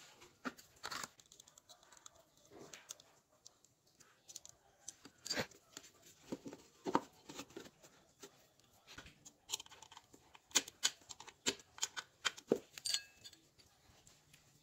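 Irregular light clicks, taps and scrapes of hands handling a 775 DC motor and seating it in a PVC plastic box: small metal and plastic parts knocking together, the clicks coming more often in the second half.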